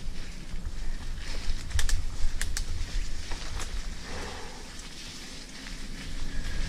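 Mountain bike riding over a leaf-covered dirt trail: low rumble of the tyres and the bike moving, with wind on the microphone. A few sharp clicks come about two seconds in, and the rumble eases off between about four and six seconds.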